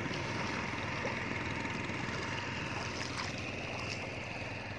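Bare feet wading through ankle-deep water over sand, with light splashing of each step over a steady background rush of water.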